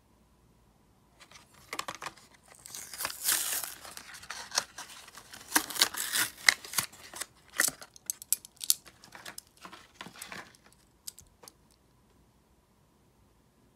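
A Hot Wheels blister pack torn open by hand: the cardboard backing card ripping and the plastic blister crinkling and clicking. It runs as a string of rips and crackles from about a second in, dying away near the end.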